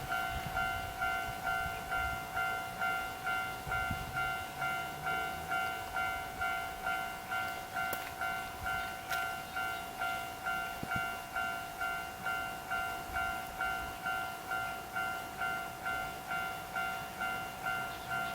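Japanese level crossing's electronic warning bell ringing steadily, about two strikes a second.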